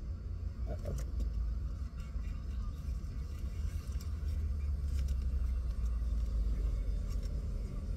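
A tarot deck being gathered and shuffled: faint scattered card clicks over a steady low rumble.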